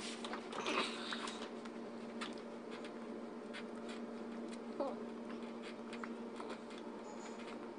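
Faint light taps and rustling over a steady low hum, with a brief faint vocal sound about five seconds in.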